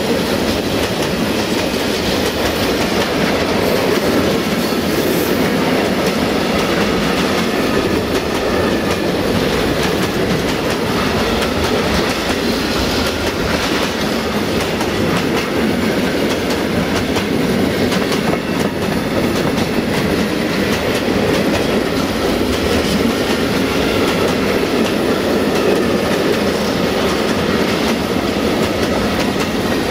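Steel wheels of freight tank wagons rolling past on the rails close by: a steady rumble with a constant run of clicks over the rail joints.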